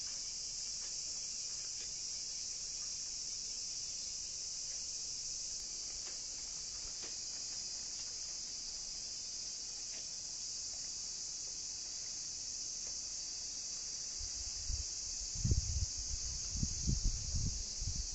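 Steady, unbroken high-pitched drone of insects, typical of a summer cicada chorus. Irregular low rumbling sets in near the end.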